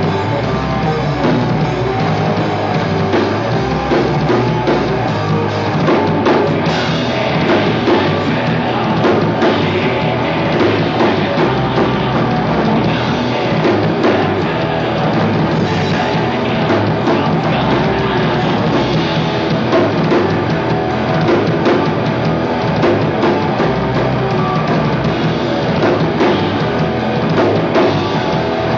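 Black metal band playing live: distorted electric guitars, bass guitar and drum kit, loud and dense with no break.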